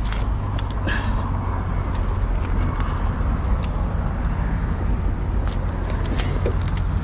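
A steady low outdoor rumble, with scattered light clicks and scrapes of a rusted piece of angle iron being handled on a magnet.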